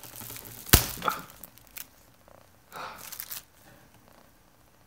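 Handling of a graphics card's packaging: a sharp knock under a second in, the loudest sound, then brief rustling and scraping of the wrapping and box around three seconds in, followed by faint scattered clicks.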